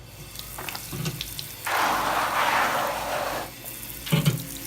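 Warm water running and splashing onto a silk screen for about two seconds, keeping the Drano-covered emulsion wet so it doesn't dry while it soaks. A couple of short knocks come before and after.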